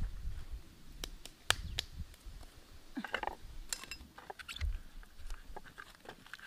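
Hands handling things: scattered light clicks, taps and crisp rustles, busiest about three seconds in, as halved banana flower pieces are set into a pan, over a low rumble.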